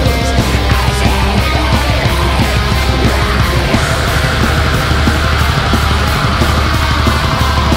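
Black metal music: dense distorted guitars over steady low bass and very rapid drumming.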